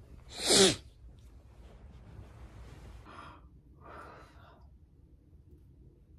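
A woman's short, loud, breathy vocal exhalation, falling in pitch, about half a second in, followed by two soft breaths about 3 and 4 seconds in.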